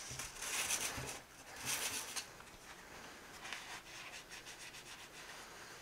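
Clear plastic flashlight lens rubbed by hand on 220-grit wet/dry sandpaper, frosting it into a diffusion lens. Two hissy strokes come in the first two seconds, then fainter rubbing.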